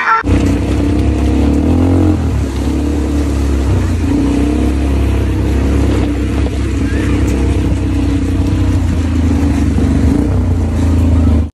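Quad bike (ATV) engine running steadily under way, a low even drone that cuts off abruptly at the end.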